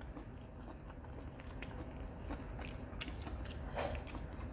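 A person chewing a bite of tender stewed beef: soft, irregular wet mouth sounds with small clicks, the sharpest about three seconds in.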